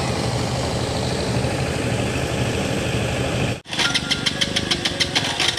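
Small engine running steadily. About three and a half seconds in, the sound cuts off abruptly and a different rhythmic clattering of quick, regular strokes begins.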